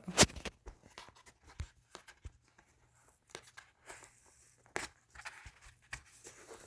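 Fingers picking at and peeling packing tape on a cardboard box: scattered scratches and sharp clicks, the loudest right at the start and another a little before the end.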